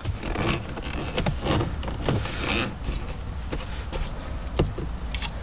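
Hands pushing and pulling on the plastic center-console trim of a 2004 Honda Civic, giving scattered plastic clicks and rustles as a stubborn retaining clip in back refuses to release. The sharpest click comes just before the end.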